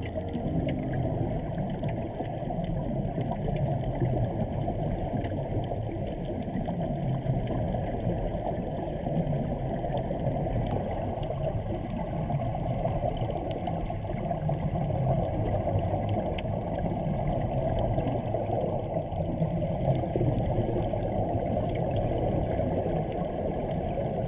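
A motorboat running steadily, with water rushing along the hull.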